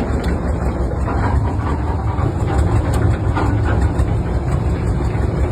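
Heavy machine engine running steadily at a constant speed, with a deep, even rumble.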